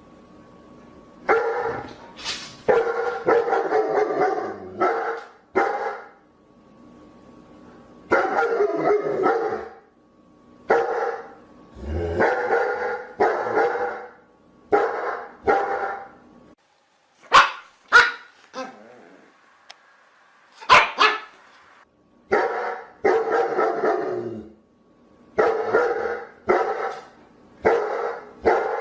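Dogs barking in runs of two to four barks with short gaps between them. In the middle comes a stretch of sharper, thinner barks.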